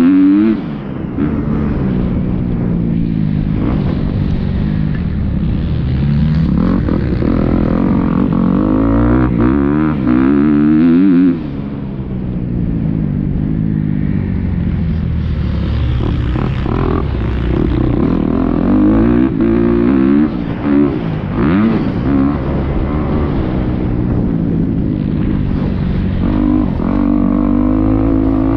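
Motocross bike engine ridden hard, its pitch climbing through the gears and dropping sharply each time the throttle is shut, with clear cuts about half a second in and near the middle.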